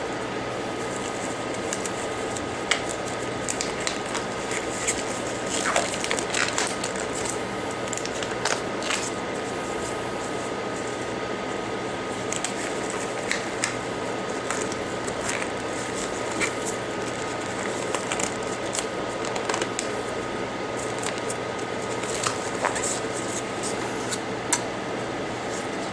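Steady blowing hiss of a hot-air rework station heating a phone logic board, with a faint steady whine, and scattered small clicks and crackles that bunch up about a quarter of the way in and again near the end.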